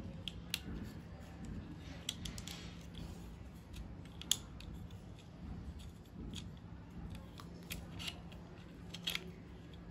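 Scattered small metallic clicks and ticks from a Shimano brake-and-shift lever and its brake cable being handled and fitted, over a faint steady hum.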